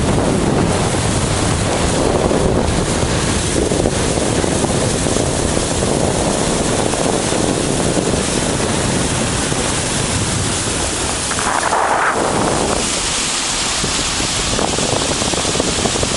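Steady wind rushing over the microphone, with water noise, recorded from a boat under way.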